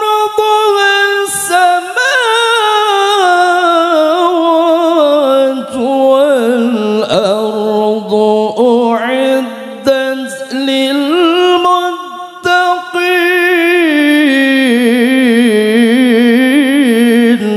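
A male qari reciting the Quran in tilawah style into a microphone, drawing out one long melismatic phrase. His voice wavers through ornamented runs and works down from a high pitch to a low one, with a few quick breaths.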